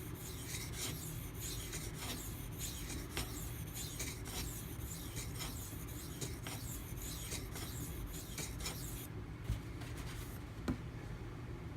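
Steel knife blade (a Spyderco Manix 2 in Maxamet) scraping in quick strokes across a silicon carbide sharpening stone, about two strokes a second. The strokes stop about nine seconds in, followed by a couple of light knocks.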